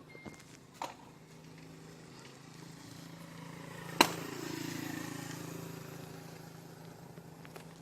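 A road vehicle passing by: a low steady hum that grows to a peak about four to five seconds in and then fades, with one sharp click about four seconds in.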